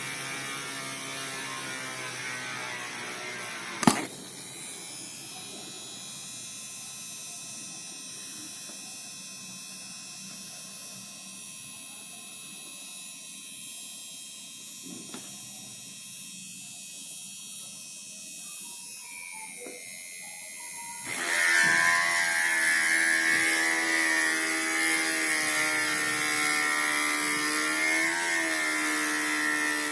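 Small DC motor of a homemade mini drill (an RS-555 on a 12 V adapter) running with a steady whine. It stops with a sharp click about four seconds in, then starts again louder about twenty-one seconds in, its pitch dipping briefly near the end.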